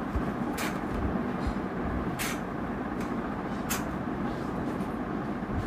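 Curtain rings sliding and scraping along a curtain rod in three short rasps, about a second and a half apart, as the curtain is pulled across, over a steady low rumble.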